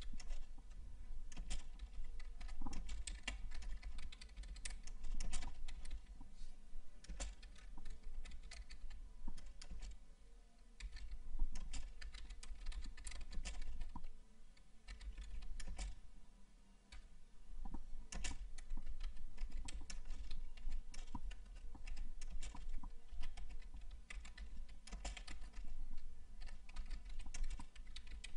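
Typing on a computer keyboard: a fast, irregular run of key clicks, with short pauses about ten and sixteen seconds in.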